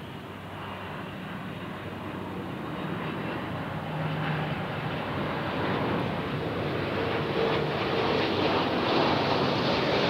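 Jet engines of an Airbus A330-200 airliner on short final approach, growing steadily louder as it descends and flares just above the runway before touchdown.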